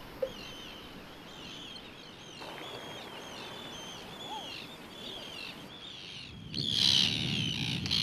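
Seabirds calling over the sea: many short, high, arched calls repeating one after another. About six and a half seconds in, the calling gets much louder and denser, a flock of terns overhead, with a rush of noise underneath.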